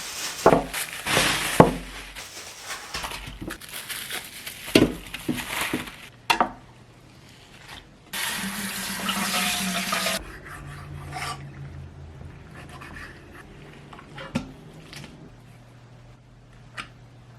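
Kitchen work sounds: dishes and utensils clattering in quick knocks, then a tap running for about two seconds near the middle, then a few lighter clinks.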